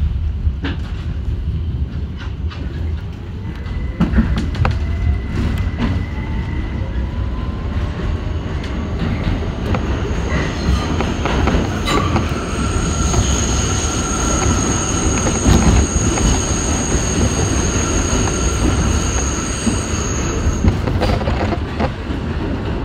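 A 1984 Kawasaki R62 New York subway car heard from inside, accelerating into the tunnel: a motor whine rises in pitch over the first ten seconds over a steady rumble, with wheels clicking over rail joints. From about halfway in until near the end, the wheels squeal in high steady tones.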